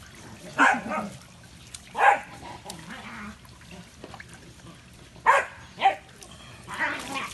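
A dog barking in short single barks, about five in all, two of them close together past the middle.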